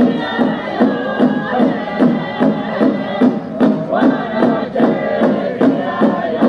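Music with a steady drumbeat, about two beats a second, under singing voices.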